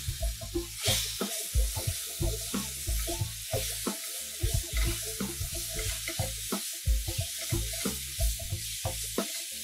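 Minced garlic sizzling in hot olive oil in a nonstick frying pan while a wooden spatula stirs it, with small knocks of the spatula on the pan. The sizzle grows louder about a second in, as the garlic is spread through the oil.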